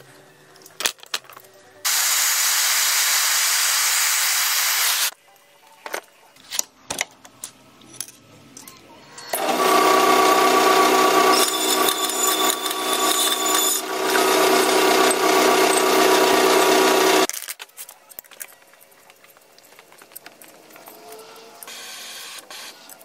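Metal-cutting bandsaw cutting a bent steel rod for about eight seconds, running steadily with several held tones under a rasping noise, and stopping abruptly. Before it comes a three-second burst of hissing noise, then scattered sharp clicks and taps of steel rod being handled.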